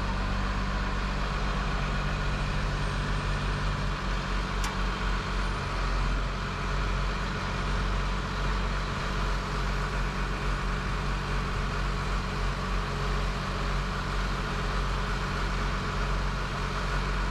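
Terex Demag AC200 all-terrain crane's diesel engine running steadily, with a low, even hum. A single faint click about five seconds in.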